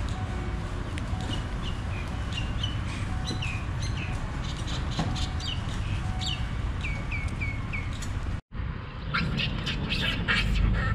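Small birds chirping outdoors in a string of short, falling chirps over a low steady rumble. After an abrupt cut a little past eight seconds, louder, harsher bird calls take over.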